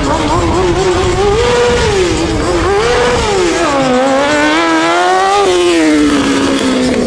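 Kawasaki freestyle stunt motorcycle's engine revving up and down as it is held on one wheel. The pitch rises and falls in short swells, dips about four seconds in, climbs once more, then falls away near the end.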